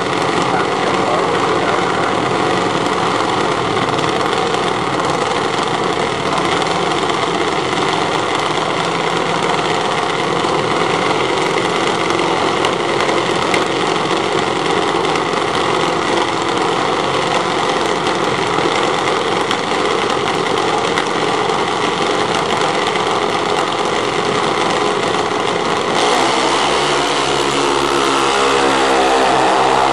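Two junior dragsters' small single-cylinder engines running steadily at the starting line. Near the end they launch, and the engine pitch climbs steeply as the cars accelerate down the strip.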